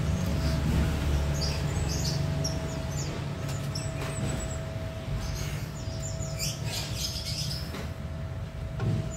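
Small birds chirping in short bursts over a low rumble that eases after the first couple of seconds, with a steady hum beneath.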